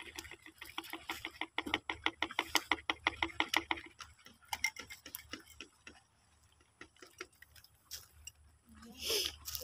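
Hand-held plastic bottles of photosynthetic bacteria culture being shaken side to side, a fast, even ticking and sloshing of about eight strokes a second that stops about four seconds in. Scattered softer knocks follow.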